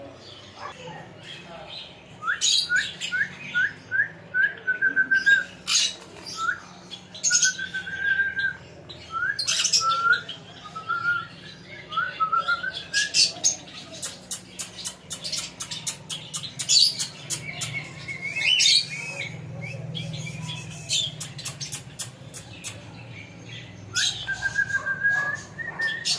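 Parrot chirping and squawking: runs of short rising whistled chirps mixed with sharp squawks, coming in bouts with brief pauses.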